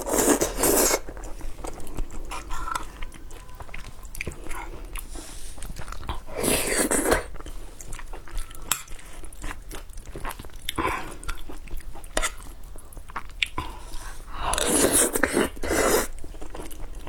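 Close-miked eating sounds: a person chewing and biting with crunchy clicks throughout, and three louder bouts of noisy eating sound, at the start, about six seconds in and near the end.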